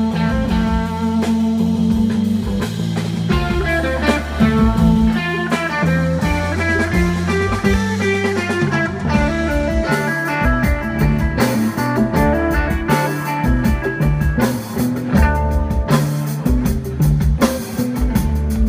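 Live psychedelic blues-rock band playing an instrumental passage: electric guitar lines over bass and drum kit, the drumming growing busier about halfway through.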